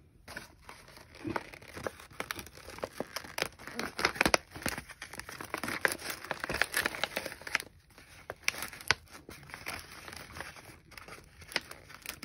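Glossy gift-wrapping paper crinkling and rustling irregularly under the hands as a wrapped present is turned over and handled.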